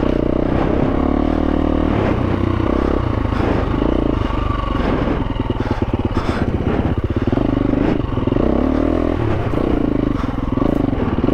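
2022 KTM 350 EXC-F's single-cylinder four-stroke engine running as the bike is ridden slowly over rocky trail, the revs rising and falling several times as the throttle is fed in and backed off, with the Rekluse automatic clutch taking up the drive.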